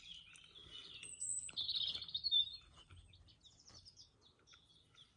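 Songbirds singing: a run of high chirps and trills, loudest about two seconds in.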